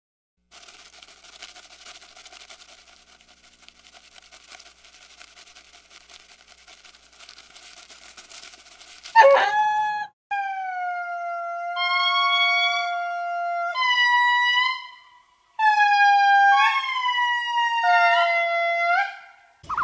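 Ring-tailed lemur giving a run of about five loud, long, wailing calls, each held on one pitch and bending upward at the end. A faint steady buzz comes before them.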